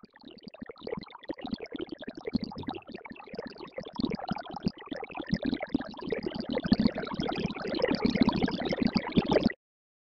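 ZynAddSubFX ADsynth patch synthesizing a water stream: noise through a resonant bandpass filter, several notes sounding at once, gives a dense bubbling trickle of droplet-like pops. It grows louder over the first few seconds and cuts off suddenly near the end.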